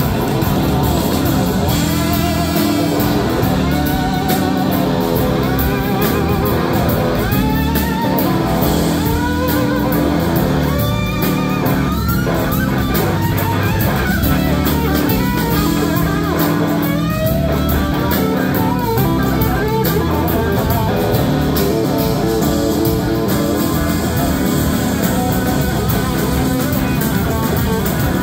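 Live blues-rock band playing: an electric guitar lead of gliding, wavering notes over drums and held chords.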